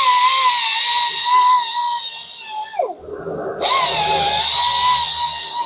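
High-speed grinder with a conditioning disc grinding the curb rash on an alloy wheel: a high whine over a hiss. It winds down and stops about halfway through, then spins back up and runs again.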